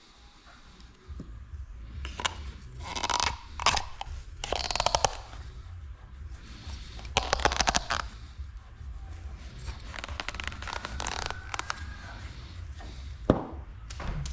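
Hand tools and parts being handled during an engine oil change: irregular scraping and rubbing, with a couple of bursts of quick clicking and a sharp knock near the end.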